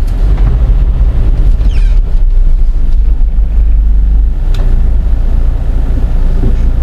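Steady low rumble of a van driving, heard inside the cabin, with wind buffeting the microphone.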